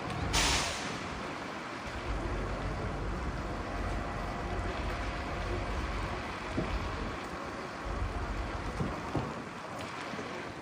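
Outdoor harbour noise: a steady wash of water and wind with an uneven low rumble, and a short, loud hiss about half a second in.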